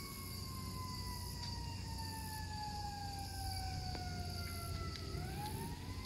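Emergency vehicle siren in a slow wail: one long tone falling in pitch for about five seconds, then turning and rising again near the end. A steady low rumble runs underneath.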